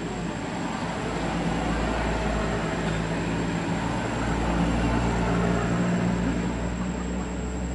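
A motor vehicle's engine going by: a low engine hum that grows louder toward the middle and then fades.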